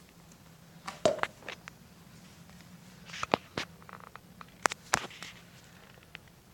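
Irregular sharp clicks and light knocks of handling, in clusters about a second in, around three seconds and near five seconds, over a faint steady hum.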